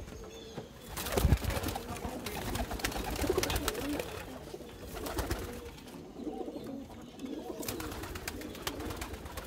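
Domestic pigeons cooing in a loft, a steady low murmur of overlapping calls. There is a short loud burst of noise about a second in.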